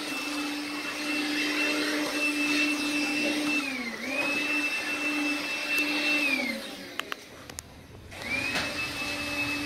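Makita 18V cordless vacuum cleaner running with a steady whine. Its pitch dips briefly about four seconds in. It winds down and switches off after about six seconds, with a couple of clicks while it is off. It spins back up about eight seconds in.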